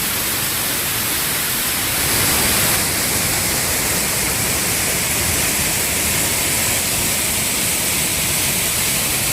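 Steady rush of a fast-flowing mountain river, loud and even, swelling slightly about two seconds in.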